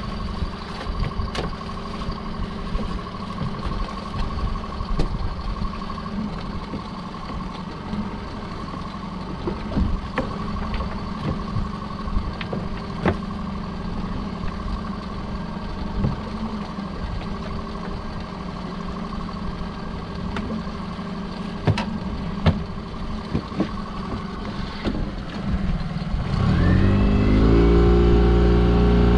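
A small fishing boat's engine idling steadily, with scattered knocks and clatter as the buoy line and pot gear go overboard. Near the end the engine is throttled up, rising in pitch and then running steadily and much louder as the boat gets under way.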